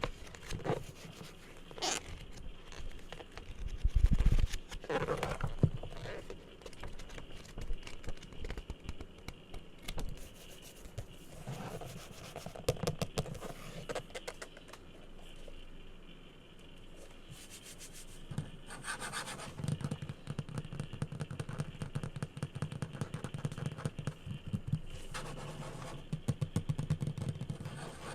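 Hands scratching, rubbing and tapping on assorted objects: a run of small scratchy clicks and scrapes, broken by a few louder knocks, the loudest about four seconds in.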